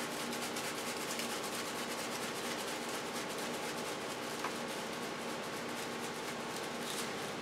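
Garlic-and-herb seasoning shaken from a shaker bottle over a bowl of cooked penne pasta: a steady, quiet rasping rattle of granules, made of many fine ticks.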